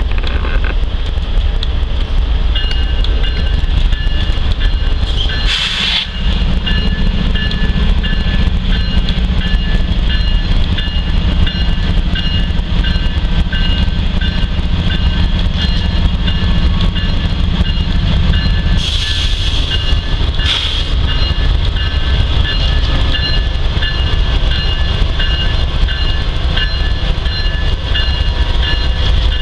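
Norfolk Southern mixed freight train's cars rolling past with a continuous low rumble and steady high-pitched ringing over it, broken by brief bursts of rushing noise about six seconds in and again around twenty seconds in.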